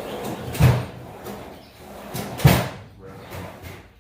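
Hard objects being handled and set down: a series of clunks and knocks, two louder ones about half a second and two and a half seconds in.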